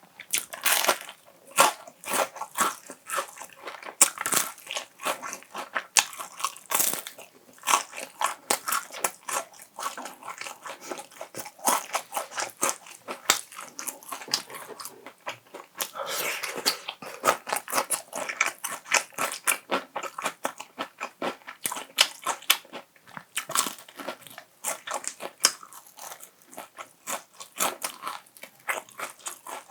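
Close-miked eating: a person biting and chewing crunchy food, a dense run of quick crackling bites and chews.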